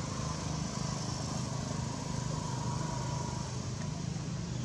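A steady, low engine drone runs through, with no change in pitch, like a small motor idling nearby.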